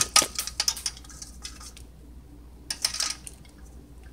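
Rinsed dry Great Northern beans tipped from a perforated metal colander into a crock pot: a quick run of clicks and rattles in the first second or so, then a few more knocks around three seconds in.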